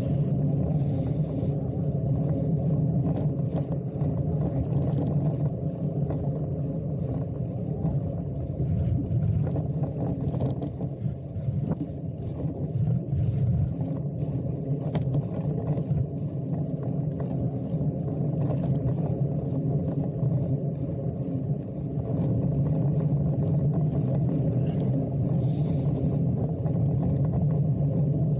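Steady low rumble of riding a fixed-gear bike: wind over the camera's microphone and the tyres rolling on asphalt, easing briefly twice.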